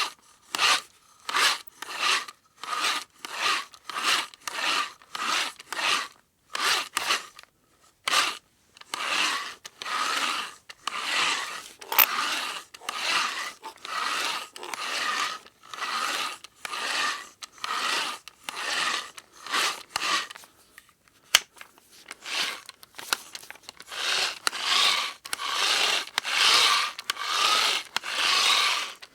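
Manual hand drill boring, in repeated rasping, scraping strokes: short ones about two a second at first, then longer, denser strokes from about nine seconds in, with a brief pause near twenty seconds.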